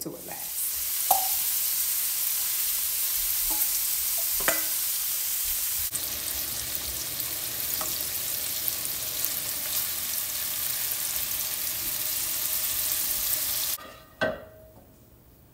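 Jumbo shrimp sizzling as they fry in hot olive oil in a frying pan. The sizzle cuts off suddenly near the end, followed by a single clink of a utensil against the pan.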